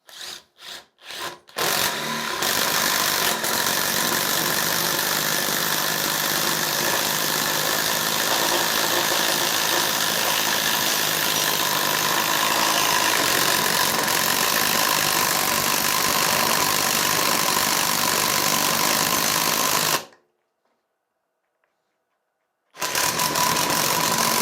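Brushless 20 V cordless impact driver boring a 40 mm hole in a wooden beam, hammering under load. It starts with a few short trigger blips, then runs continuously for about eighteen seconds, cuts off suddenly, and starts again near the end.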